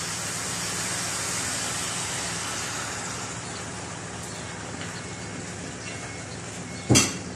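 Chicken drumsticks and pork belly sizzling in hot oil in a pot, a steady hiss, while vinegar is poured over the meat. A single sharp knock comes near the end.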